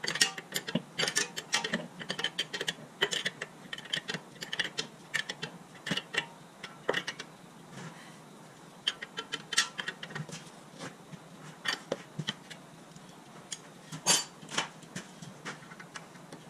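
Hand wrench clicking and clinking on the front suspension's outer tie rod end: irregular sharp metallic ticks and taps, sometimes in quick runs, as a nut is worked by hand.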